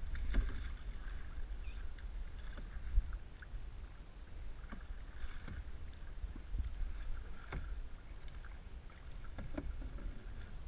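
Canoe paddles dipping and pulling through choppy lake water, with soft splashes over a steady low rumble and a few sharp knocks, the loudest about three seconds in.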